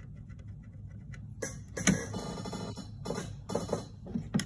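Handling noise from wiring work: wires and plastic thermostat and transformer housings scraping and rubbing in irregular scratchy bursts, with a couple of sharp clicks, over a faint steady low hum.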